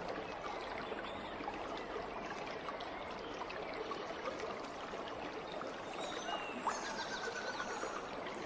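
Steady trickle of flowing water.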